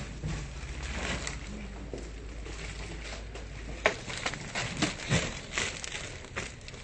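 Filled carrier bags of groceries rustling and crinkling as they are handled. From about halfway through there is a run of short knocks and thuds as the bags are set into a pickup truck's bed.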